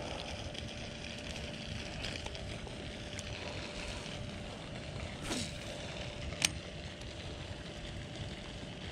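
Steady, low outdoor background noise, with a faint tick about five seconds in and a sharper one about six and a half seconds in.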